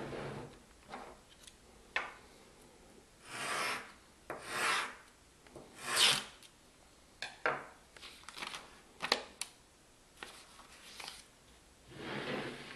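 Handling noise: several short scraping swishes, about a second long each, with small sharp clicks and taps between them.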